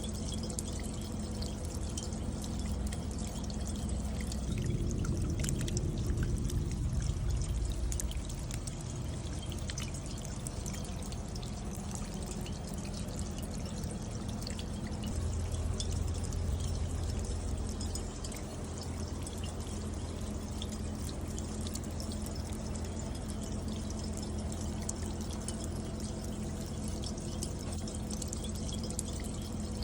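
Rainwater pouring and dripping down a copper bucket rain chain, with many small drops ticking on the copper over a steady low rumble of running water. The flow swells slightly twice.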